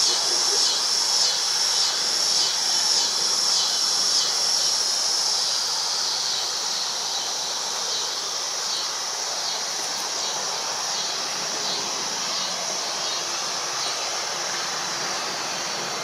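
Insects calling in a steady pulsing buzz, about two pulses a second, the pulses growing less distinct after about five seconds, over the broad hum of distant city traffic.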